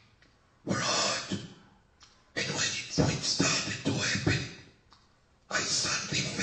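A voice speaking in three stretches with short pauses between; the words are not made out.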